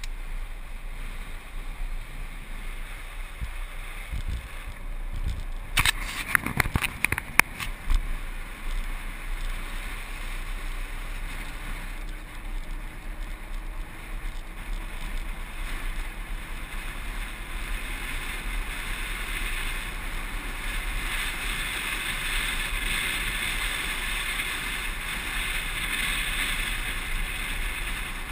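Land yacht sailing across a dry lakebed: wind rushing over the camera microphone with a low rumble from the wheels rolling on the hard sand. About six seconds in there is a burst of sharp knocks and rattles lasting a second or two, and the rushing grows louder in the second half.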